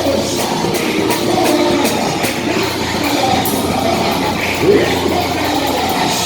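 Lively church praise music with a steady beat, and many voices singing and calling out over it.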